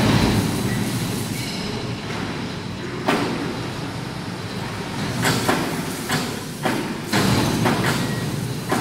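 Overhead crane running as it carries a long steel box beam slung from its hook, a steady mechanical hum with several sharp knocks scattered through it.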